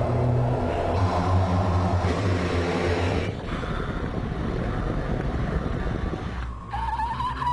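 A choir imitating a car with their voices: low sustained humming like an engine, with a breathy hiss like wind and tyre noise over it. Near the end the sound changes suddenly to a single wavering high note.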